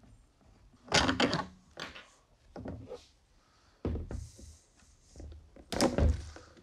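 Knocks and clunks of a plastic cyclone dust separator and its PVC pipe being handled as the pipe is worked out of its coupling: several separate dull thumps, the loudest about a second in and near the end.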